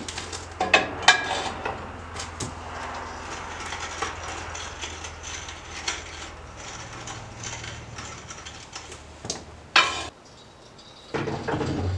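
Steel engine hoist being levered round under a heavy machine with a pipe cheater bar: repeated metallic clanks, clicks and rattles, with a sharp clank just before ten seconds in.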